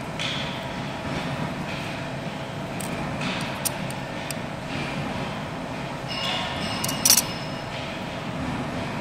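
Steady mechanical hum and rumble with a few faint clicks. About seven seconds in comes a short metallic ringing that ends in a sharp clink.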